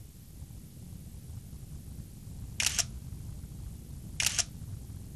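A camera shutter fires twice, about one and a half seconds apart, each a quick double click. A low steady hum runs underneath.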